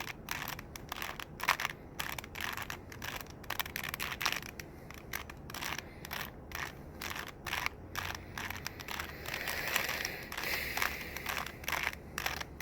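Rubik's cube being turned rapidly by hand: a quick, irregular run of plastic clicks and clacks as the layers snap round, several a second.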